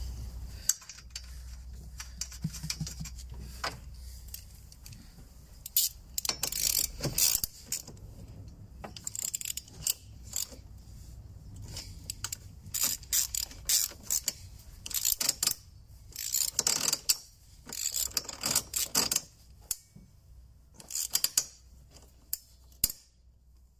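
Hand socket ratchet clicking in repeated short bursts as 13 mm strut-top nuts are run down and tightened.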